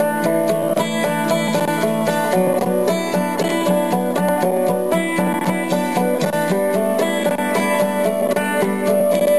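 Background music: a fast, upbeat tune on plucked strings, with notes changing quickly over a steady accompaniment.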